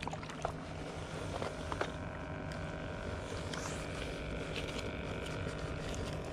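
A steady engine drone with a few light clicks and taps in the first two seconds.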